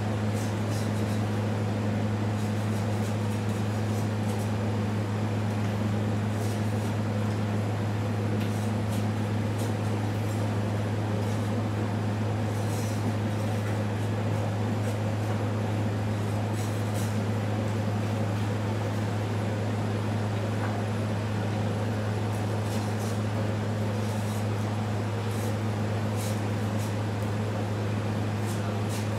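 Steady low machine hum, a deep drone with a fainter tone an octave above it over a constant rushing noise, typical of a fan or compressor running. A few faint high ticks sound now and then.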